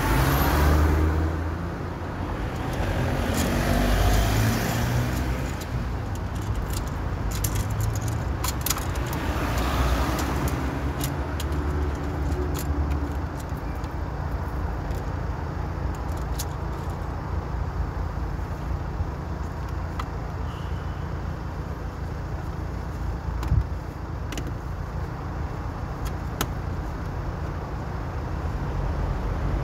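City street traffic: cars and other motor vehicles passing with a deep engine and tyre rumble that swells in the first few seconds and again around ten seconds, with scattered sharp clicks and one brief knock about two-thirds of the way through.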